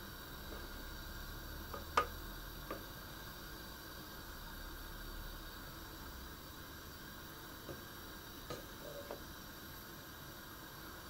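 Faint steady hiss of a pot of water boiling on the stove, with a few light clinks of a utensil, one about two seconds in and a small cluster near the end.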